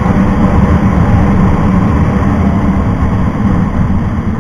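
Wind buffeting the microphone of a moving motorcycle, a loud, rough rumble, with the motorcycle's engine running underneath.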